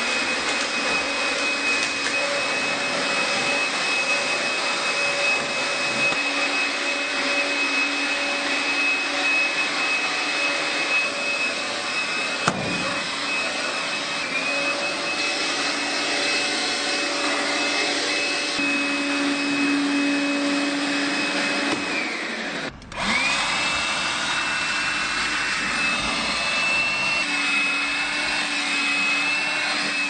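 Makita DCL180 18V cordless stick vacuum running steadily with a high whine as it cleans. About twenty-two seconds in, the motor briefly spins down and winds back up to speed.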